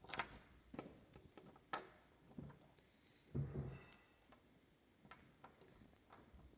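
Faint, scattered clicks and taps of small plastic toy big-cat figurines being set down and shifted on a glass tabletop.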